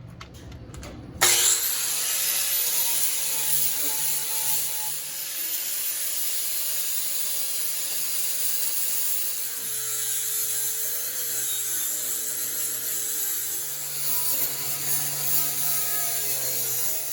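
Angle grinder starting up about a second in and grinding steel down to bare metal, with a steady high hiss and a motor whine that wavers as the disc is pressed into the metal.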